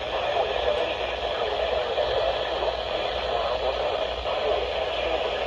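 Steady radio static hiss, with no clear speech coming through.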